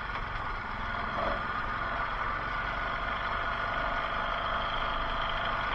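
ATV (four-wheeler) engine running steadily at low revs.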